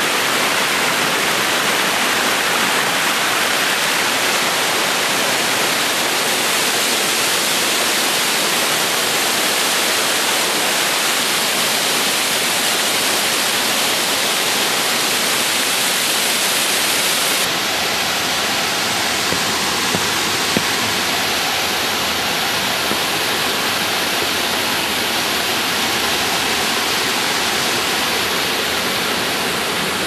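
Waterfall pouring over rock ledges in a gorge: a loud, steady rush of falling water, turning slightly duller a little past halfway.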